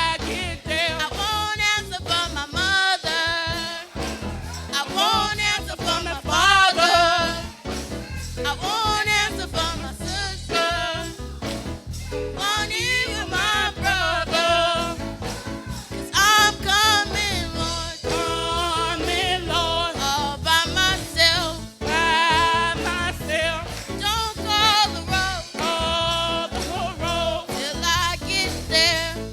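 Gospel music: a voice singing with a wavering vibrato over instrumental accompaniment.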